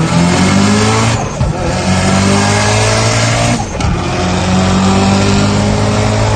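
Mitsubishi Lancer Evolution VII RS's turbocharged four-cylinder engine accelerating hard, its pitch climbing steadily, with two quick upshifts about a second in and just under four seconds in, each followed by the pitch climbing again.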